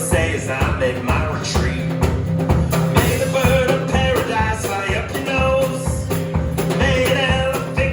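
Live acoustic guitar strummed with a drum kit keeping a steady beat, a folk/old-country song played as a band.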